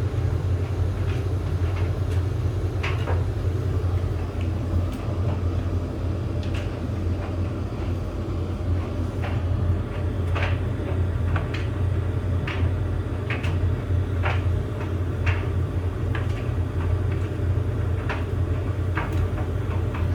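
Bosch Maxx7 tumble dryer running: a steady low hum from the motor and drum, with irregular light knocks and clicks, roughly one or two a second, as the load tumbles in the drum.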